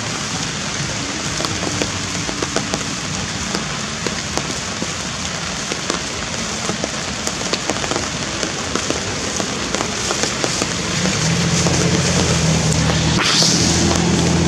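Steady heavy rain falling, with many drops pattering on surfaces. About eleven seconds in, the low steady hum of an engine joins it.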